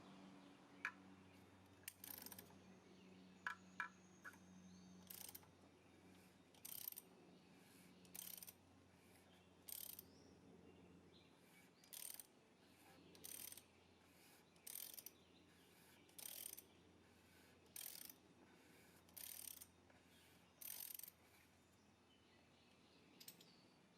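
Ratchet wrench with a 24mm socket clicking in short runs, about one every second and a half, as it swings back between turns that unscrew the oil filter housing cap. Faint, with a few lighter clicks and taps at the start.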